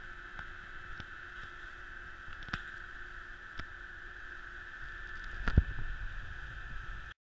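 Muffled rumble and steady hum picked up by an action camera worn while skiing down a piste, with a few sharp knocks from bumps and a louder thump about five and a half seconds in. The sound cuts off suddenly near the end.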